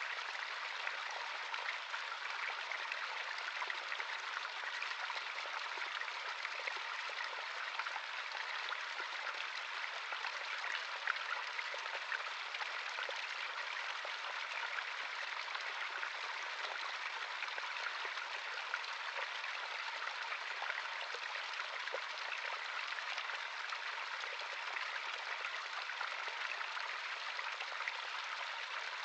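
Natural stream of running water, a steady babble and trickle with many small fine splashes, unchanging throughout.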